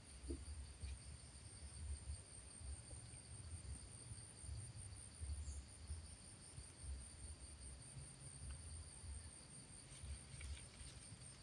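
Insects chirring steadily in two continuous high tones, over a low, uneven rumble; a few faint ticks about ten seconds in.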